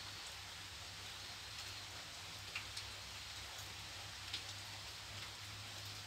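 Steady rain falling on a pond's surface: an even hiss with a few sharper drop ticks scattered through, over a low steady hum.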